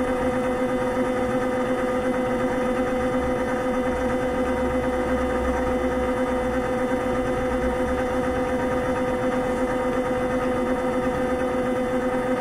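Vibration mechanotherapy apparatus running under the patient's feet, shaking them: a steady, unchanging machine hum with a strong pitched tone.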